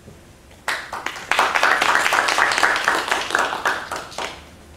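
A small group applauding: rapid hand claps start about a second in, swell, and die away after about three and a half seconds.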